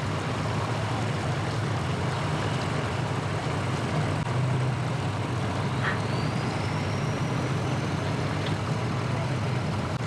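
Steady low engine rumble from idling motors.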